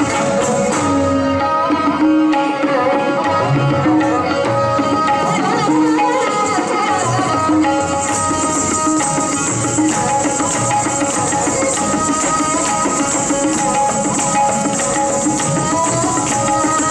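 Indian classical dance music: tabla playing a steady rhythm under a melodic line over held drone notes.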